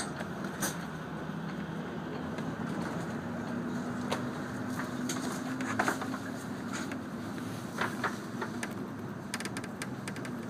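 Airport apron bus running, heard from inside the cabin: a steady low drive hum with scattered short rattles and clicks from the bus body and fittings.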